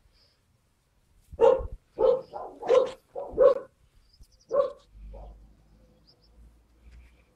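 A dog barking: a quick run of about six short, sharp barks starting about a second and a half in, with a fainter one just after.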